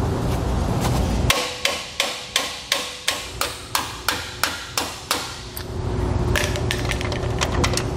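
Hammer striking a steel pin to drive it out of a trailer's surge brake actuator coupler: about a dozen sharp metal-on-metal blows, about three a second, each with a brief ring. Lighter, quicker taps follow near the end.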